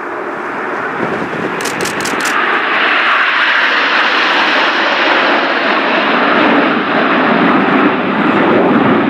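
Nine BAE Hawk T1 jet trainers of the Red Arrows flying over in close formation, their turbofan engines a loud, steady roar. The roar builds over the first few seconds as they pass overhead, then drops to a deeper rumble as the formation moves away.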